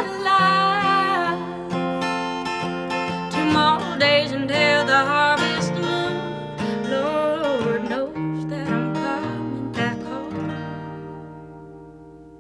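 Acoustic guitar playing the song's closing bars, with a voice holding the last sung note and its vibrato for about a second at the start. The guitar fades out and is left ringing near the end.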